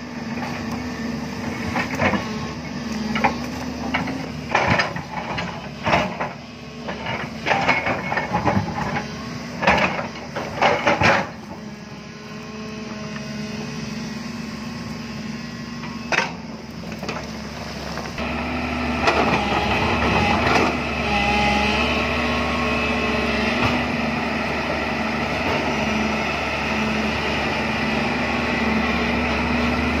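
JCB crawler excavator's diesel engine running steadily while its bucket digs into a rocky hillside. For about the first ten seconds there are repeated sharp knocks and clatter of rock and earth against the bucket. A little past halfway the engine and hydraulics grow louder and work harder as the loaded bucket is lifted.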